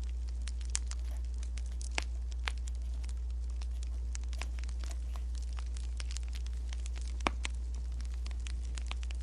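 Wood fire crackling: irregular sharp pops and snaps, one louder snap about seven seconds in, over a steady low rumble.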